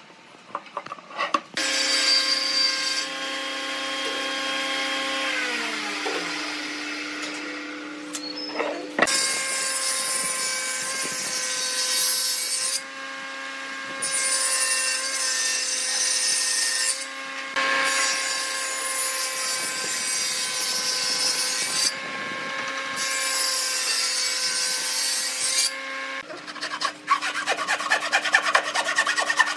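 Table saw motor running with a steady hum, its pitch dropping as the blade spins down a few seconds in, then starting up again and cutting wood in several passes of a few seconds each. Near the end, a hand saw cuts through stacked boards in rapid back-and-forth strokes.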